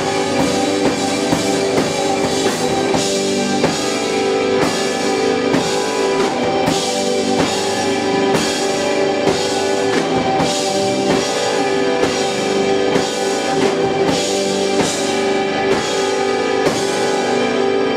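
Live rock band playing: drum kit with steady, regular hits over electric guitars, bass and sustained synth chords. Near the end the drums stop, leaving a held keyboard chord ringing.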